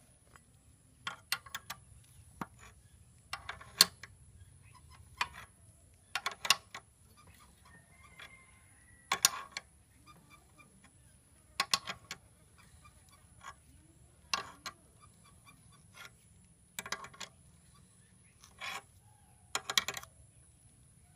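Irregular sharp metal clinks of a spanner and rod against a small scissor jack's screw end as the jack is cranked and folded down, a clink every second or two.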